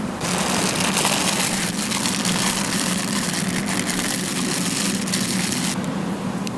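Crinkling and crackling of plastic and foil packaging being unwrapped and crumpled by hand. It starts suddenly just after the start, stops shortly before the end, and sits over a steady low background hum.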